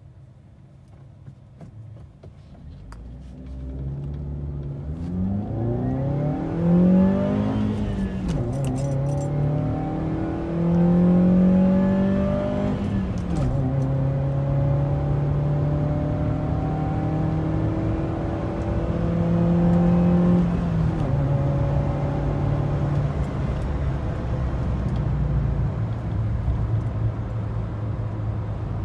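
A Chevrolet Spark's small four-cylinder petrol engine, breathing through a K&N induction kit and heard from inside the cabin, accelerating hard from near standstill. The engine note climbs with the revs and drops at each of three gear changes, then settles to a steady cruise.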